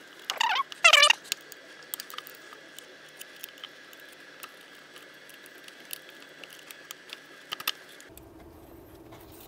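Small clicks and taps of hand tools and engine parts being handled, with two short falling squeaks within the first second or so as the oil filter housing is worked loose.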